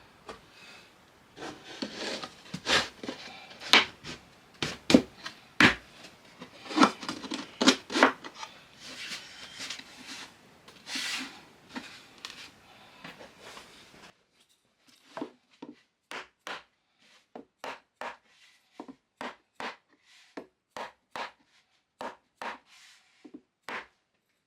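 Plywood parts being handled and set in place with rubbing and scattered knocks. About halfway through this gives way to a steady series of hammer blows, roughly one or two a second, driving nails to fix the glued shelves into the plywood carcass.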